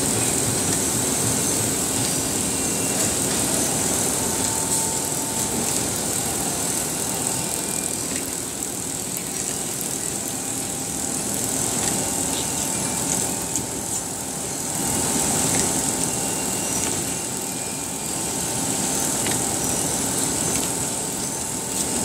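Veneer line in a plywood mill running: belt conveyors and a rotary veneer clipper make a steady mechanical din with a high hiss and a thin steady hum, with a few faint ticks.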